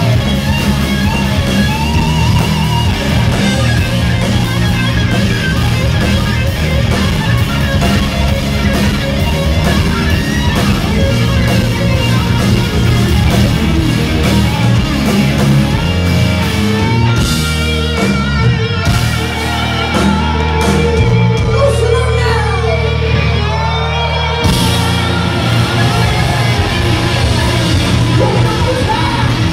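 Rock band playing live: loud electric guitars, bass and drums. About two-thirds of the way through, the drums and deep low end drop out for several seconds, leaving a pitched line sliding up and down, then the full band comes back in.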